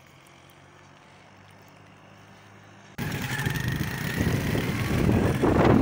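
A faint low hum, then an abrupt cut about three seconds in to a loud, steady rush of a motorcycle riding over a gravel road, with wind on the microphone, getting a little louder.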